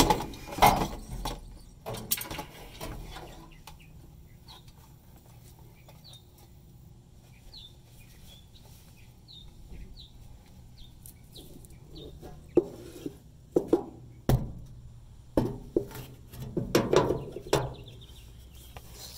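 A small bird chirping in short high notes, one every second or so, through a quiet stretch. Handling clatter and sharp knocks frame it: a few at the start, and a series of knocks with rustling near the end.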